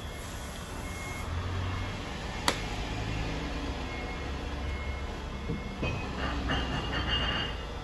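Garage background noise with a low hum, a single sharp click about two and a half seconds in, and a short run of clattering near the end.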